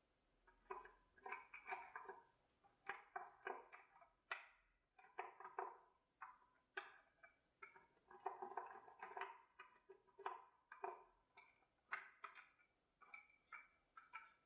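A paintbrush working paint over a plaster bas-relief: a quiet, irregular series of short brush strokes and dabs, about two a second.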